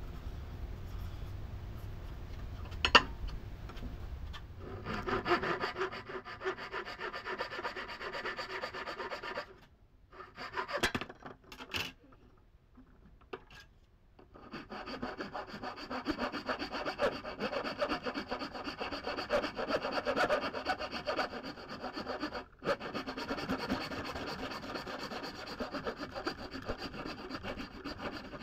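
Maple handle wood being sawn, a continuous rasping cut in two long spells with a pause of about five seconds near the middle and a sharp click shortly before the first spell.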